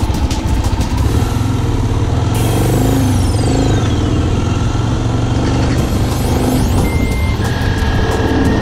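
Yamaha XT600K's single-cylinder four-stroke engine running steadily as the bike rides along.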